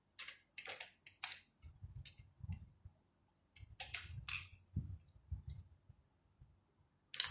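A string of sharp plastic clicks and light knocks from a small device being handled, with low rumbling from handling in between.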